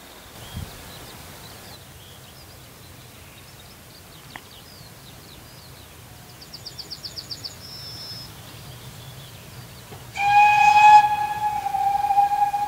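Steam locomotive whistle of the Pt47-65, the loudest sound: one long, steady blast that starts about ten seconds in and is still sounding at the end.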